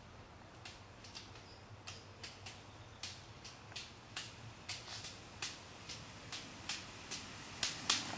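Ski-pole tips clicking on asphalt as roller skiers skate and pole toward the microphone: sharp, uneven clicks about three a second, growing louder and loudest near the end as the skiers pass close.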